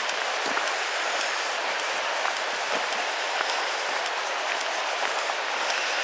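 East Lyn River rushing over boulders, a steady hiss with no let-up, with faint crunching footsteps on a gravel track.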